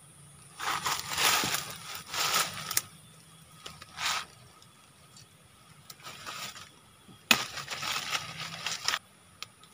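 Dry leaves and twigs rustling and crackling as they are handled and crushed on the forest floor, in several bursts of a second or two, loudest about a second in and again near the end.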